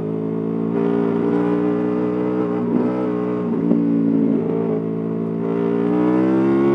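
Honda VFR800 V4 engine with a new exhaust, running under way. Its pitch dips briefly a few times in the middle, then rises steadily near the end as the bike accelerates.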